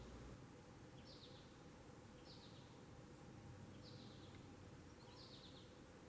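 Faint American goldfinch calls: four short, high chirps, each falling in pitch, about a second and a half apart, over a low steady hiss.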